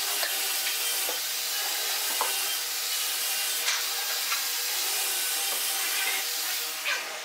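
Pine boards being handled and set down on a wooden workbench: light knocks and rubbing of wood on wood, over a steady hiss that drops away near the end.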